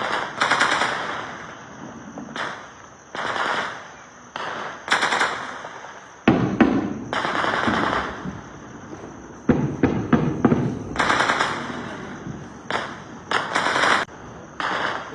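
Bursts of automatic gunfire: about a dozen short strings of rapid shots, each lasting about half a second to a second, fired at irregular intervals.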